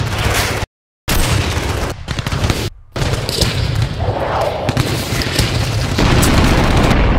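Film battle sound: dense gunfire and heavy booms over a low rumble, cut off abruptly twice near the start by brief total silences. About six seconds in it grows louder and steadier, like a blast going on.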